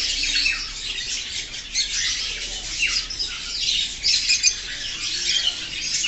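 Many cage birds chattering at once, a dense, continuous mix of overlapping squawks and chirps.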